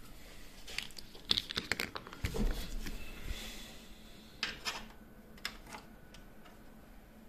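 Handling noise: rustling and a few scattered sharp clicks as a USB flash drive is plugged into a port on top of a desktop PC case.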